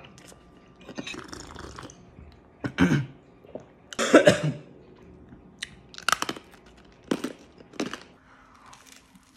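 Hard strawberry lollipop being bitten and crunched between the teeth: a string of sharp, loud crunches about a second apart, with softer chewing before them.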